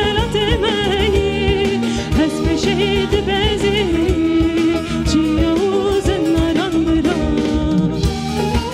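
A woman singing a Kurdish folk song in an ornamented, wavering melody, accompanied by plucked long-necked saz lutes and a bass guitar; near the end her voice drops out and the instruments carry on.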